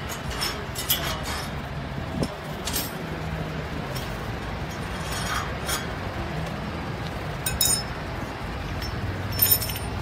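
Scattered sharp metallic clinks and clicks from hands-on work around a motorcycle on its metal shipping-crate base, the loudest cluster near the end, over a low steady background hum.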